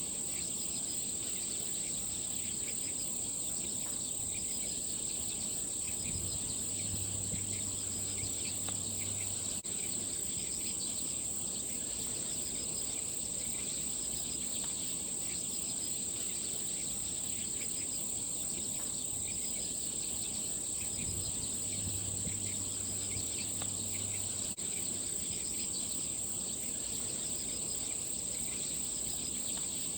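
Steady, high-pitched chorus of insects, likely crickets, trilling without a break. A faint low hum comes in twice for a few seconds.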